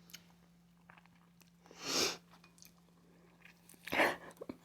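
Close-up chewing of a mouthful of balut: soft mouth clicks, with two louder noisy swishes about two and four seconds in, over a faint steady hum.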